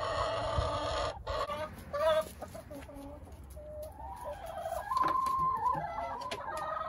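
A flock of backyard chickens clucking and calling, with several drawn-out calls overlapping. The calls are loudest in the first second and again from about five seconds in.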